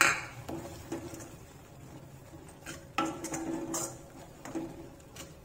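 Steel ladle stirring a thick tomato mixture in an iron kadai, scraping and knocking against the pan's side. It starts with one sharp clank, and a cluster of knocks comes about three seconds in.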